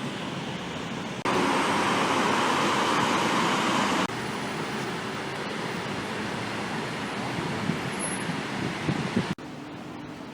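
Steady city traffic noise, cut abruptly between several separate recordings; a louder stretch of rushing noise runs from about a second in to about four seconds in, and the sound drops to a quieter hum near the end.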